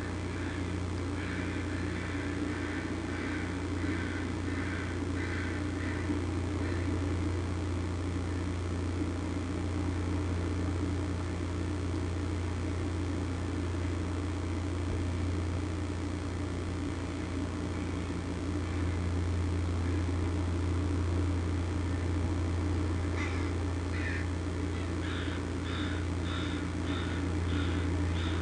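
Bird calls over a steady low hum: a series of repeated calls at about two a second for the first six seconds, and another, higher-pitched series near the end.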